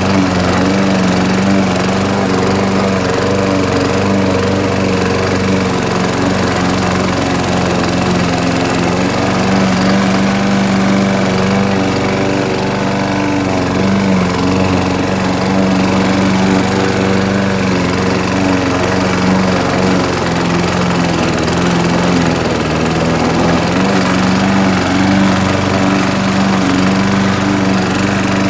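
Gasoline walk-behind push mower's single-cylinder engine running steadily as it is pushed through tall grass.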